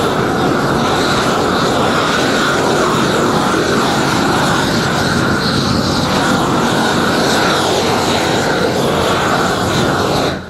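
Propane roofing torch burning steadily with a loud rushing noise as it heats a roll of granulated rubber-modified torch-down roofing to melt it onto the base layer. The noise cuts off suddenly at the very end.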